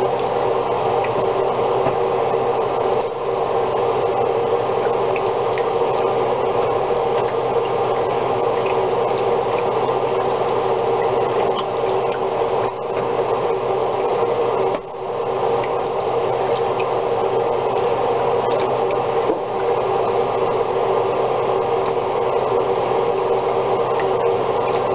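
Red wine simmering in a skillet while a wooden spoon scrapes the browned bits off the bottom to deglaze the pan; a steady, even noise with a few brief dips.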